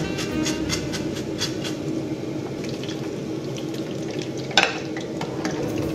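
Hot oil sizzling in a frying pan as a skimmer scrapes against the pan in quick repeated strokes, scooping out pieces of fried bread. One sharp clank about four and a half seconds in.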